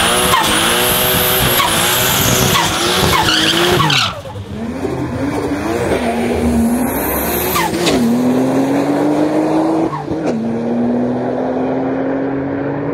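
Turbocharged Nissan RB30 straight-six in a Holden VL Commodore doing a burnout, the engine revving over loud tyre screech for about the first four seconds. The engine then pulls with its pitch rising steadily, broken twice by short dips as the manual gearbox is shifted up.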